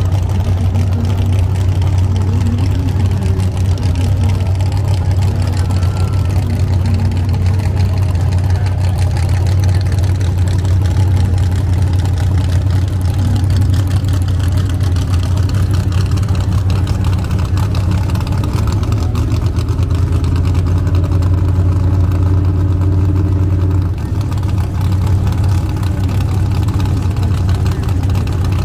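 Drag race car engine idling with a steady low rumble, holding nearly constant, with a brief drop in level about 24 seconds in.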